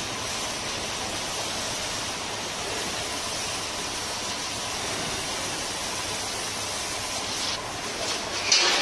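Steady hiss of a pressure-washer water jet spraying a motorcycle during its wash, with a brief louder surge near the end.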